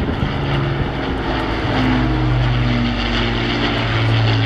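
Avro Lancaster's four Rolls-Royce Merlin piston engines running as the bomber flies past, a steady drone of several engine tones that shift slightly in pitch.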